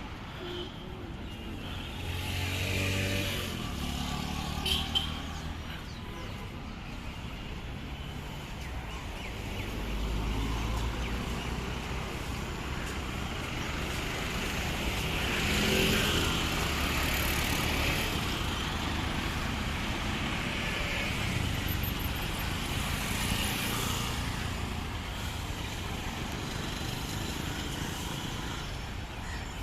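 City road traffic: cars and motorcycles driving past with their engines running, one pass after another. The loudest pass comes about halfway through.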